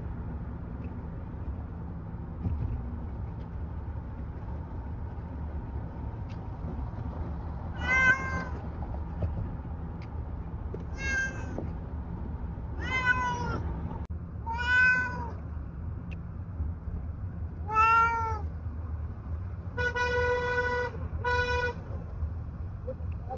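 Tabby cat in a plastic pet carrier meowing five times, a few seconds apart, each call rising and falling in pitch. Near the end come two calls held at a steady pitch, one longer and one short. Under it all runs the steady low rumble of a moving car.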